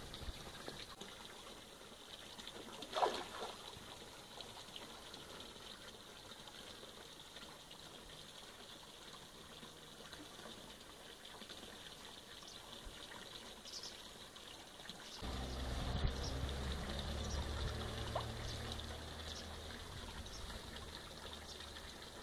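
Faint water sounds at the surface of a carp pond where carp are taking floating bait, with one short splash about three seconds in. A low steady hum comes in about fifteen seconds in.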